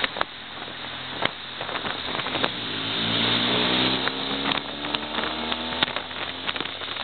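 BMW R1200GS boxer-twin engine running under wind and road noise. Its pitch rises as the bike accelerates from about two and a half seconds in, with scattered sharp clicks.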